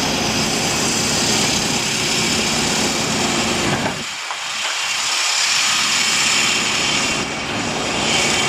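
Engine of a road-works machine such as a JCB backhoe loader running steadily, a loud drone. About four seconds in the low rumble drops away briefly, then comes back.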